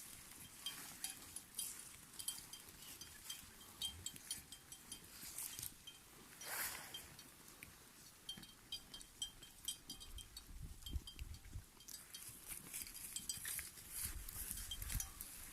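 Small bells on a flock of sheep clinking and tinkling irregularly as the animals move.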